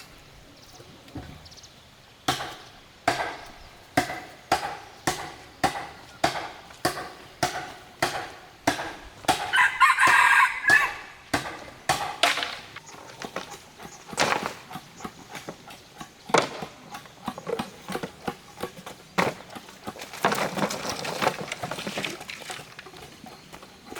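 A rooster crowing, loudest about ten seconds in, over a steady series of sharp knocks at about two a second that stop about two-thirds of the way through.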